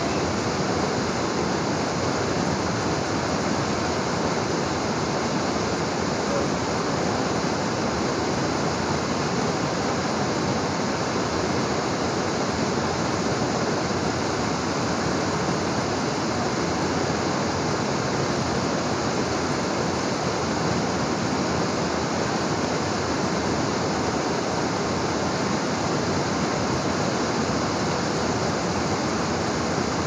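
Waterfall, a steady, unbroken rush of falling water.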